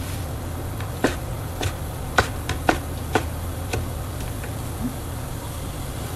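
Kitchen knife cutting boiled pork on a plastic cutting board: a handful of short, irregular knocks of the blade against the board between about one and four seconds in, over a steady low hum.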